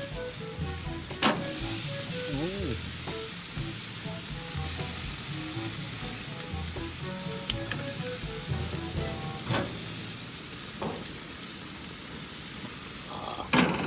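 Barbecue-sauce-glazed pork ribs sizzling steadily on a hot gas grill's grate. Several sharp clicks sound scattered through it as tongs knock against the metal grate while the ribs are turned. Faint background music plays underneath.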